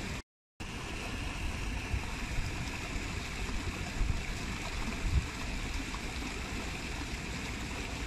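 Small waterfall: water running over steps in a steady rush. The sound cuts out completely for a split second near the start, and there are two brief low surges in the middle.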